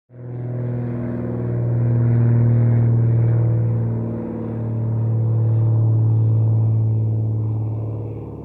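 Aircraft noise: a steady low hum with a stack of overtones that cuts in suddenly and swells louder twice, around two and six seconds in.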